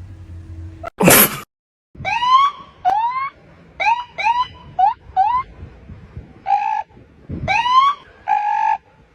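A police siren giving short rising whoop chirps again and again, each under half a second, with two short flat tones among them. A loud burst of noise comes about a second in.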